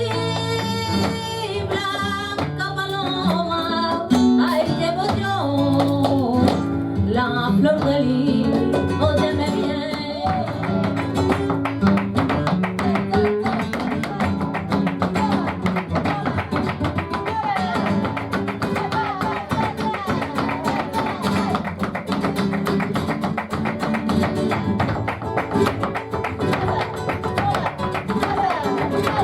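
Live flamenco guajira: a singer's voice over acoustic guitar for about the first ten seconds, then the guitar goes on under a dense run of rapid, sharp percussive strikes.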